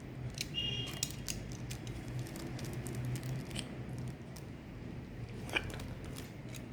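A cardboard laptop box and its packaging being handled and opened by hand: scattered light clicks, taps and rustles over a steady low hum.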